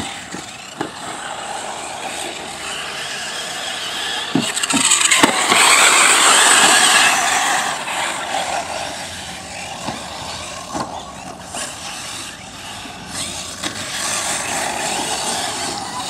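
1:8 scale brushless electric RC buggies driving on a dirt track: a steady whirr of motors and tyres on dirt, swelling loudest about five to seven seconds in as the cars pass close, with a few short knocks along the way.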